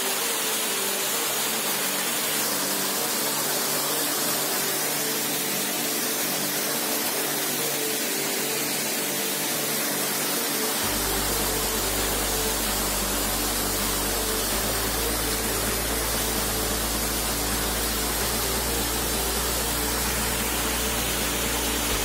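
Waterfall rushing over rock tiers, a loud steady roar of falling water. Background music of sustained notes runs under it, shifting pitch every so often, with a deep bass note coming in about halfway.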